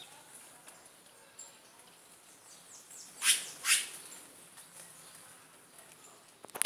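A backyard bird calling: two loud calls, each sweeping downward in pitch, about three seconds in, with a few fainter downward notes just before.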